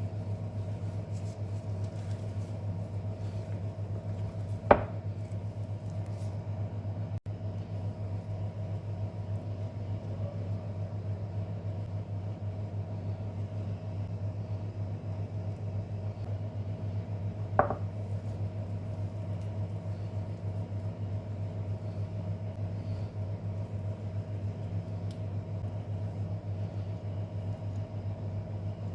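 A steady low electrical hum, like a running kitchen appliance, with two sharp clicks or knocks, one about five seconds in and another near eighteen seconds.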